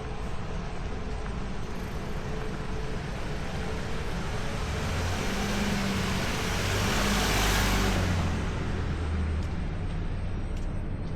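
A motor vehicle driving past on the street, its engine and tyre noise swelling to a peak about seven seconds in and then fading, over steady street background.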